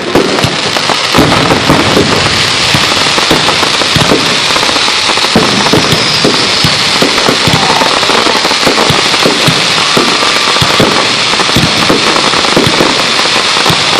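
Aerial fireworks bursting close overhead in a dense barrage: a loud, continuous crackling, like heavy rain, shot through with many sharp pops.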